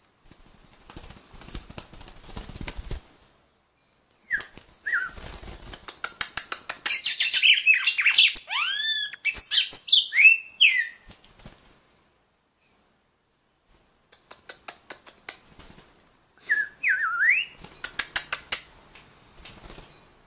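Red-cowled cardinal singing short bursts of whistled, gliding notes mixed with rapid clicking chips, in two outbursts, and fluttering its wings near the start.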